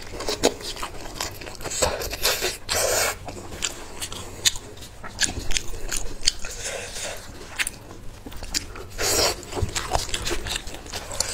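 Close-miked eating sounds: biting and chewing meat stripped from a sheep's head, with many short wet mouth clicks and smacks. There are a few longer rustling, tearing stretches as the meat is pulled apart with gloved hands.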